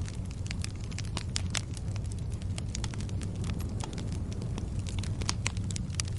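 Wood fire crackling: frequent irregular sharp pops and snaps over a steady low rumble of flames.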